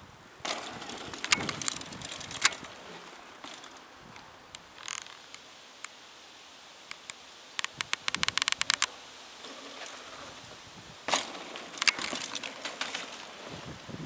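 Mountain bike riding a dirt-jump trail: tyres rolling on dry dirt with a couple of sharp knocks from landings early on, a quick run of even ticks from the coasting freewheel hub in the middle, and louder tyre noise near the end as the bike comes closer.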